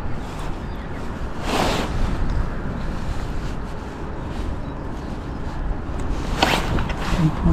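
Wind buffeting the microphone as a steady low rumble, with two short swishing sounds, about one and a half and six and a half seconds in.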